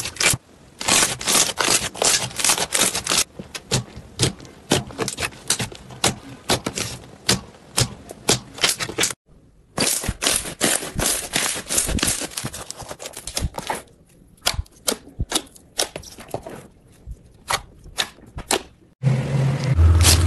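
Crunchy slime being worked, giving dense runs of crisp crackles and pops. The sound drops out briefly about nine seconds in, and near the end a low hum joins the crackling.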